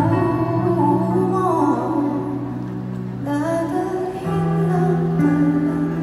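Live performance of a slow song: a woman singing into a microphone with gliding, wavering vocal lines over a band's sustained accompaniment with bass notes.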